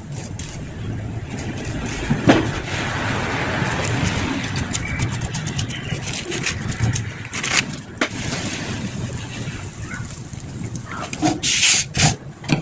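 Batter being brushed and scraped across a hot square griddle pan, over a steady rushing noise, with several sharp knocks of the brush or utensil against the pan, most of them about seven to eight seconds in and near the end.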